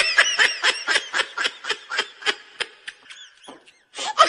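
High-pitched, rapid comic laughing sound effect: quick giggle-like pulses, about five or six a second, breaking off briefly near the end before starting again.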